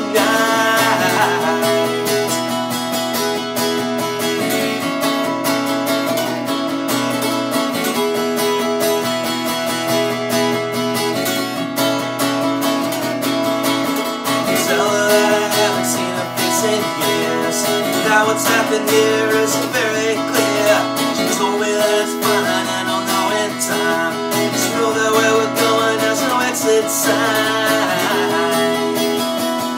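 Acoustic guitar strummed steadily, with a man singing a song over it in phrases that come and go.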